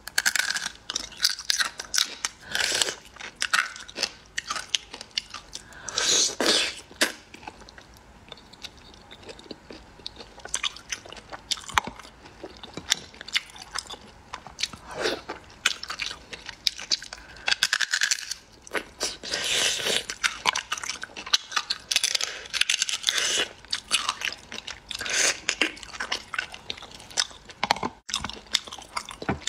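A person biting and chewing saucy food up close: sharp bite clicks and wet chewing in spells of a second or two, over and over.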